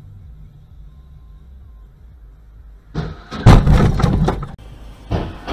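Car collision picked up by a dash camera: a low running rumble, then about three seconds in a sudden loud impact, a louder crash half a second later, and a second of clattering noise.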